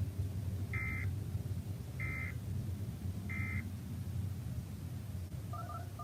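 Emergency Alert System end-of-message data bursts: three short buzzing digital bursts about a second and a bit apart, marking the end of the broadcast warning, over a steady low hum.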